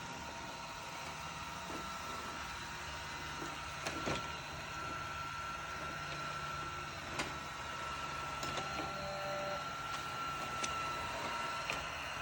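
Xiaomi Robot Vacuum E10 running in mopping mode: a steady motor whine over a low hum, with a couple of light clicks about four and seven seconds in.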